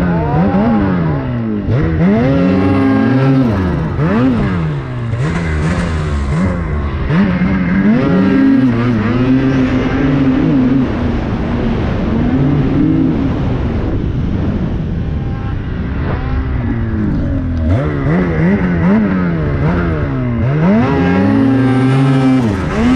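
Ski-Doo Summit Turbo R snowmobile's turbocharged 850 two-stroke twin revving hard as it is ridden, its pitch climbing and dropping over and over, holding steady at high revs for a few seconds around the middle.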